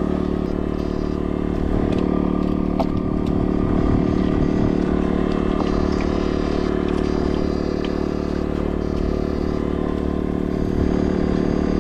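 Steady motor drone with a fixed pitch and no change in speed, with scattered light clicks and crackles over it.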